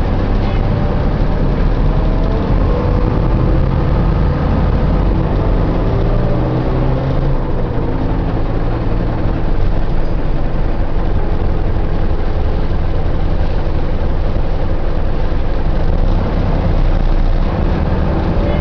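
Optare Solo bus running, with a steady low engine drone. Whining tones rise and fall in pitch over the first several seconds, fade, and return near the end.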